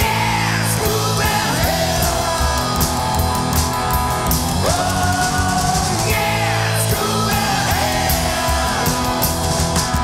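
Punk-tinged rock band playing an instrumental break: electric guitar lines with bending notes, repeating a phrase every few seconds over bass and a driving drum kit.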